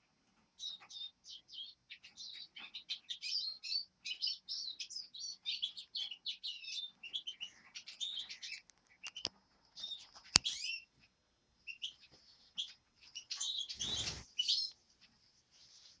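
A flock of small forest songbirds chirping and twittering in quick, overlapping high calls. Two sharp clicks come near the middle, and a brief low thump comes near the end.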